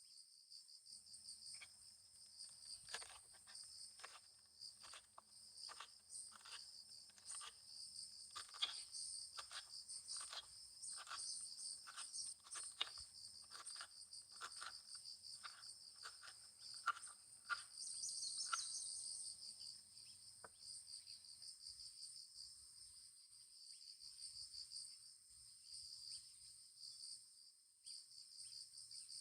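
Insects chirping in a faint, steady, high pulsing trill. For the first twenty seconds or so it is joined by a run of light, evenly spaced taps, about one every half second.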